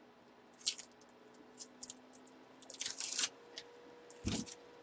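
Adhesive tape being peeled off the plastic shell of a full-size football helmet: a few short crackling rips spread out, the longest about three seconds in. A dull thump near the end as the helmet is handled.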